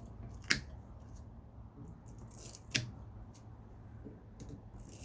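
Wire-cutter pliers snipping through copper wire: two sharp snips about two seconds apart, with a few fainter clicks near the end.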